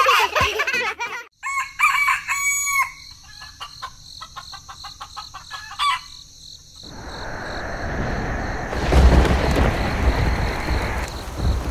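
A rooster crowing, followed by short clucking calls. From about seven seconds in, a steady rushing noise rises, with a low rumble joining it a couple of seconds later.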